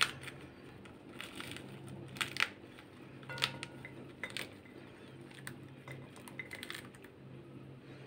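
Scored pomegranate being gently pulled apart by hand, with a few loosened arils dropping into a glass bowl as scattered small clicks, about five in all.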